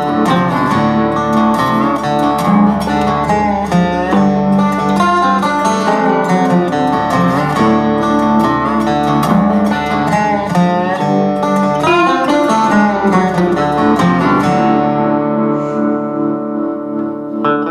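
Background music led by acoustic guitar, plucked notes and chords.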